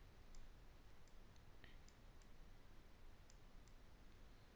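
Near silence with a scatter of faint ticks: a stylus tapping on a drawing tablet as digits are hand-written.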